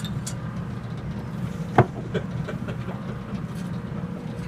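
A steady low rumble, with one sharp ringing metal knock about two seconds in and a lighter tap just after it.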